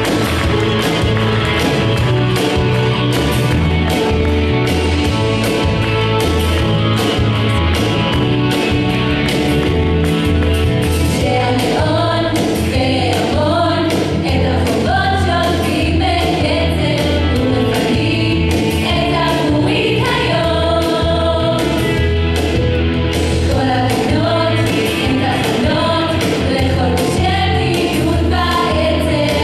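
Israeli song medley with group singing over a steady, quick dance beat. The sung melody stands out most from about twelve seconds in.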